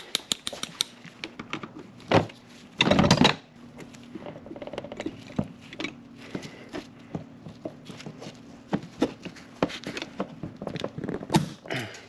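Pliers working at a stubborn hose clip: many small metal clicks and scrapes, with one louder, longer rasp about three seconds in.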